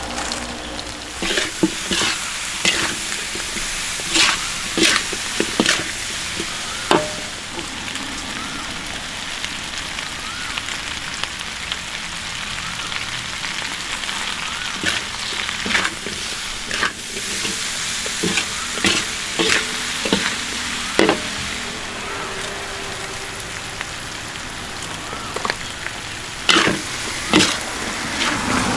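Food sizzling in hot oil while it is stirred. Sharp knocks and scrapes of a utensil against the pan come in clusters, between stretches of steady sizzle.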